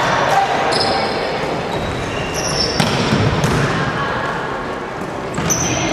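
Indoor volleyball play: a few sharp hits of the ball, short high squeaks of sneakers on the wooden court, and voices echoing in the hall.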